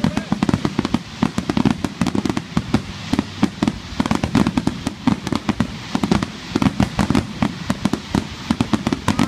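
Aerial firework shells bursting in a rapid barrage: many deep booms a second, overlapping with sharp crackles, without a pause.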